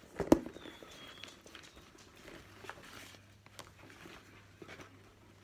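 A handbag being handled and opened: one sharp knock shortly after the start, then faint rustling and small clicks as the bag is pulled open.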